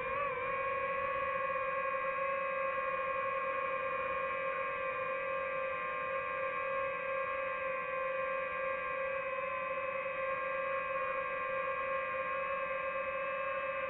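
DJI FPV drone's motors and propellers giving a steady whine, picked up by the drone's own onboard microphone, the pitch wavering only slightly as it cruises.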